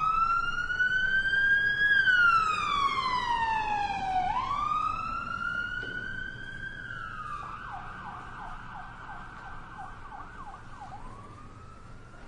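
Emergency-vehicle siren in a slow wail, its pitch rising and falling over about two seconds each way. About seven seconds in it switches to a fast yelp of about three sweeps a second, growing fainter throughout.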